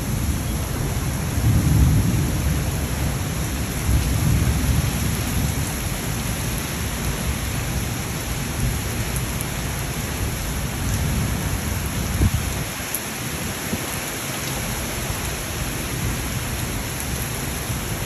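A heavy thunderstorm downpour of rain and hail pelting hard, with strong wind gusting and rumbling on the microphone. The rumbles swell loudest about two and four seconds in.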